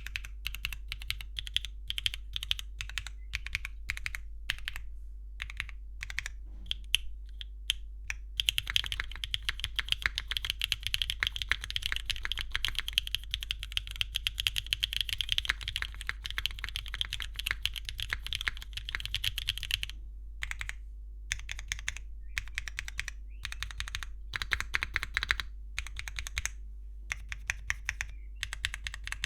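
Typing on a custom aluminium 60% keyboard with Kailh BCP linear switches, a polypropylene plate, gasket mount, no foam and Cherry-profile ABS keycaps: keystroke clacks. Spaced strokes at first, fast continuous typing from about eight seconds in, then short bursts with pauses, over a faint steady hum.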